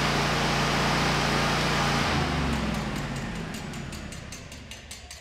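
Lincoln Electric Ranger 250 welder's gasoline engine running steadily. About two seconds in its pitch drops and it winds down, fading away with a light regular ticking.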